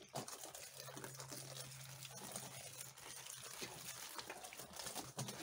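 Water poured from a plastic jug in a thin stream onto husk-covered ears of green corn in a chest freezer, trickling and pattering faintly and steadily.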